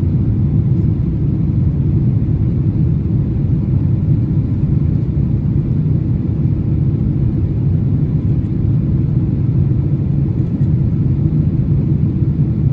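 Steady low rumble of jet engines and airflow heard inside the passenger cabin of a Boeing 767-300 airliner climbing after take-off.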